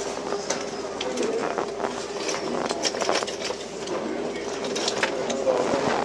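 Restaurant room noise: scattered clinks and knocks, like dishes and cutlery, over indistinct voices and a steady hum.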